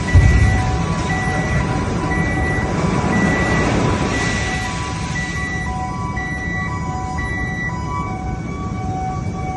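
Steel plant noise: a steady rumbling industrial din with a heavy low thump just after the start. Over it an electronic warning tone beeps on and off in a repeating pattern of a few pitches, like a crane or plant alarm.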